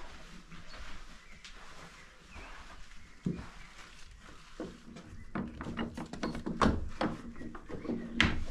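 A few quiet steps and a couple of thumps, then from about five seconds in, music with a run of distinct notes begins.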